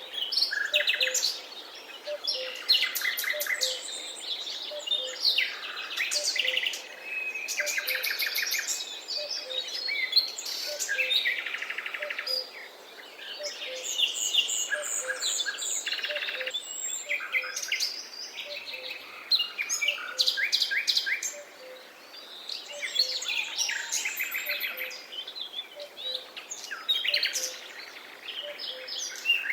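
A chorus of several songbirds singing at once: overlapping chirps, trills and whistled phrases following one another without a break.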